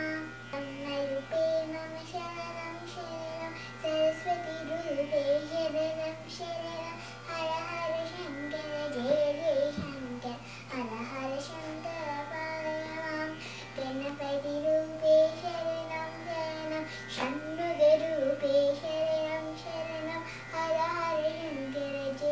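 A young girl singing a Carnatic devotional song, her voice moving up and down through a continuous melodic line.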